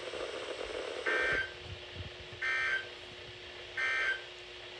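Three short bursts of EAS digital header data (SAME code), a shrill warbling buzz each time, evenly spaced about a second and a half apart, on a weather-radio broadcast. A faint steady low tone sounds underneath from the first burst on.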